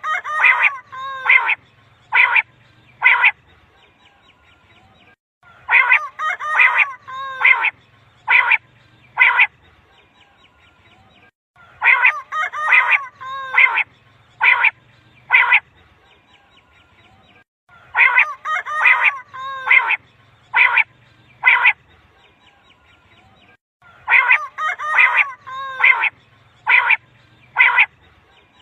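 Common quail (batair) calling, the lure call used by quail hunters. The same phrase repeats at even intervals about every six seconds, five times: a quick run of notes followed by three sharp notes.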